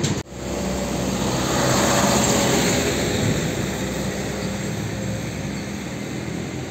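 Diesel dump truck engine running as the loaded truck approaches along the road, with motorcycles passing. A brief break in the sound comes near the start.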